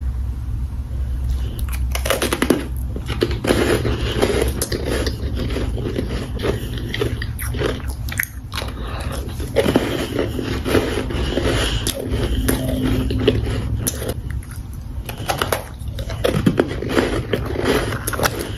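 Powdery frozen ice chunks being bitten and chewed close to the microphone: dense, irregular crunching.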